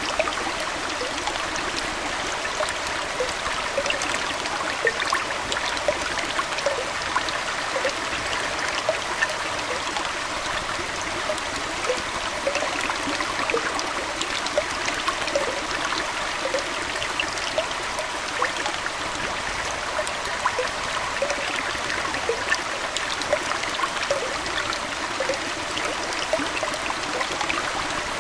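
Aquarium water trickling steadily, an even rush with many small bubbly blips through it.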